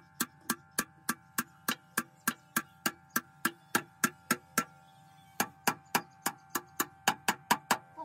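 A steady run of sharp metal taps, about three or four a second with a short pause about halfway, from a hammer striking the steel side plate and bearing housing of a road roller drum.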